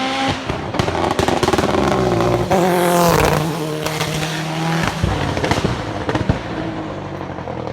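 Race car engine at full throttle, its note climbing to the loudest point about three seconds in and then dropping to a lower pitch, with sharp cracks from the exhaust.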